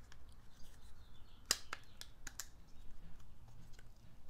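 Sharp plastic-and-metal clicks from a trailer-plug harness housing worked by hand as its retaining clips are pushed to free the metal bracket. There is a quick run of about five clicks in the middle and a few fainter ticks around them.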